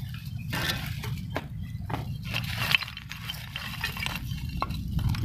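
Broken concrete, brick fragments and stones clinking and scraping as they are shifted by hand: irregular small knocks and rustles over a steady low rumble.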